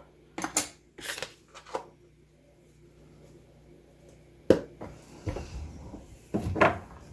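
Kitchen handling noises: a few soft clicks and rustles, a quiet gap, then a sharp knock about four and a half seconds in, followed by more rustling.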